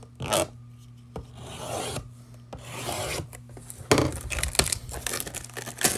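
Plastic shrink wrap on a cardboard trading-card blaster box being slit and scraped with a pointed tool: two long rasping strokes, then a run of quicker scratches and clicks.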